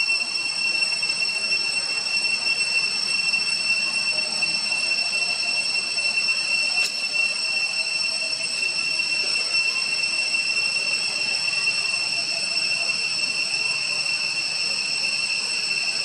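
Insect chorus: a steady, high-pitched drone of several held tones over a hiss, with a single short click about seven seconds in.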